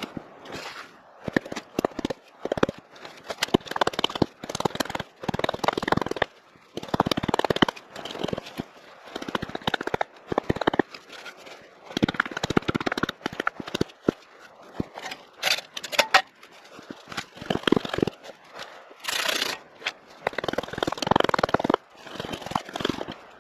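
Small hatchet chopping into a wooden mallet blank on a stump: repeated sharp knocks of blade into wood, irregularly spaced, about one or two a second, with a brief scraping rasp about four-fifths through.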